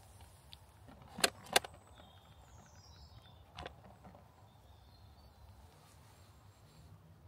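Quiet outdoor background broken by two sharp clicks about a third of a second apart, then a softer click a couple of seconds later, with a faint high bird chirp between them.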